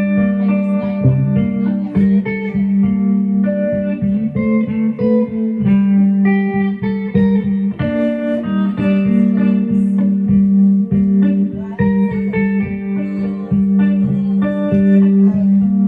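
Guitar music: plucked guitar notes over a steady low bass tone.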